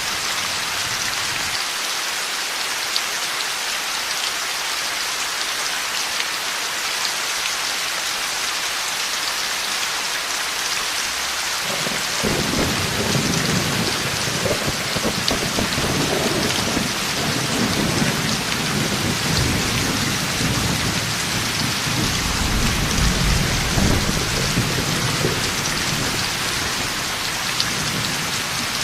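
Heavy rain falling steadily. About twelve seconds in, a long roll of thunder begins and rumbles on for over ten seconds, at its strongest near the end before fading back into the rain.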